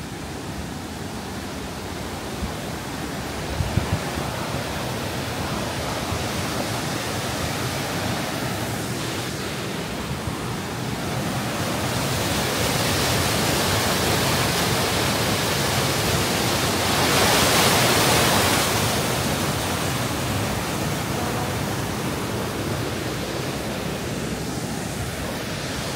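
Aira Force waterfall in full spate after heavy rain: a steady rush of falling water that swells as it is approached and is loudest about two-thirds of the way through.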